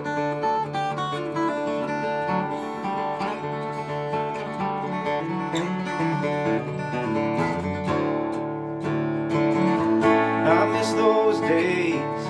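Steel-string acoustic guitar playing a song's instrumental intro in steady picked and strummed chords. It grows louder over the last few seconds, where a wordless, wavering voice-like tone rises over the guitar.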